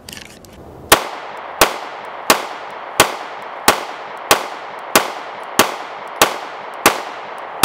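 Glock G43x MOS 9mm subcompact pistol firing a steady string of about eleven shots, evenly spaced roughly two-thirds of a second apart, each with a short ring after it.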